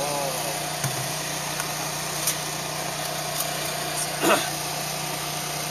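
Steady hum of an idling engine under a constant hiss. A few small clicks come through, and a louder sharp knock a little after four seconds in.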